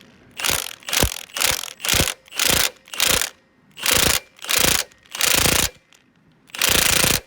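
Milwaukee cordless impact wrench with a deep 17 mm socket hammering at a tight engine-mount bolt. It goes in about ten short trigger bursts, the last one longer.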